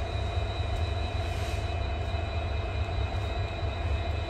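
Steady low rumble and hum of trains in a station, with a few steady whining tones above it.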